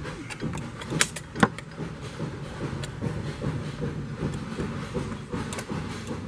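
Sharp metallic clicks of a hand wrench being worked on the camshaft cap bolts during torquing, the two loudest about a second in, with lighter ticks after, over a steady low workshop hum.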